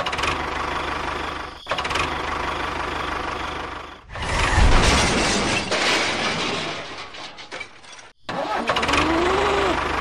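Engine-like running sound of toy model tractors, in several segments with sudden cuts between them: one just before two seconds in, one at about four seconds, and one around eight seconds. The loudest stretch comes at about five seconds in.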